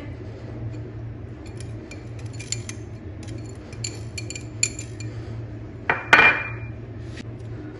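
Light clinks and taps of a small cut-glass bowl against a glazed terracotta bowl as a paste is tipped and knocked out of it. About six seconds in comes one sharper clink that rings briefly.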